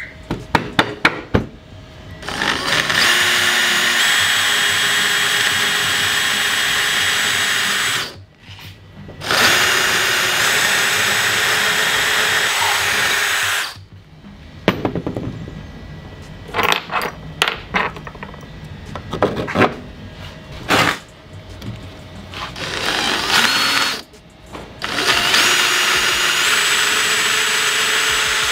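DeWalt cordless drill boring holes through a plywood board with a twist bit. It runs in three long stretches of several seconds, stopping and starting again, and there are short clicks and knocks in the pauses between.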